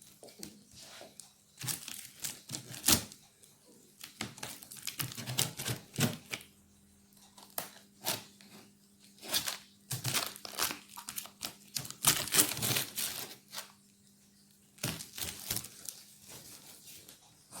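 Cardboard and plastic packing being handled and pulled apart while a large shipping box is opened: irregular crinkling, tearing and clicking, in uneven bursts with short pauses.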